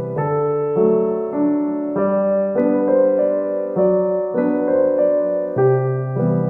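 Background keyboard music: a gentle piano-like melody over sustained bass notes, the chords changing about every half second.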